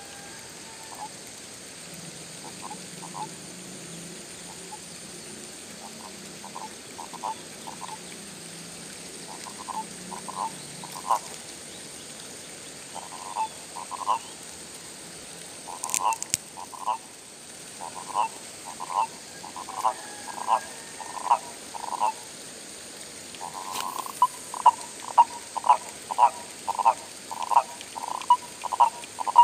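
Frogs calling: short croaks repeated, sparse at first and growing more frequent and louder, about two a second near the end.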